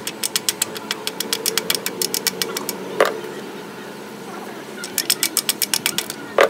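Steel hand tool tapping on metal parts inside an open Fiat 680 tractor gearbox. It gives two runs of quick light metallic taps, about six a second, and each run ends in a harder strike that rings briefly.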